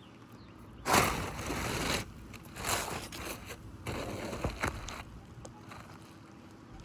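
Scraping and crunching as a roof shingle is pried and worked loose, in three rough bursts, the first about a second in being the loudest.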